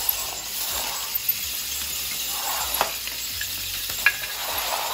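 VEX IQ robot's dual-motor intake running: its rubber-band rollers spin with a steady whirring rattle, with a few sharp clicks.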